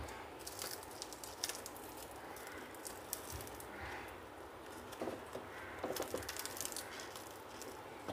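Faint rustling and crinkling of a banana leaf as hands fold it into a parcel, heard as scattered soft crackles that come in small clusters.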